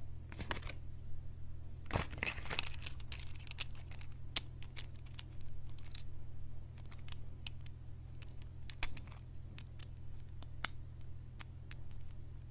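A paper Kinder Joy toy leaflet rustling and crinkling as it is unfolded, followed by many small, irregular clicks and taps of hard plastic toy pieces being handled and fitted together, over a steady low hum.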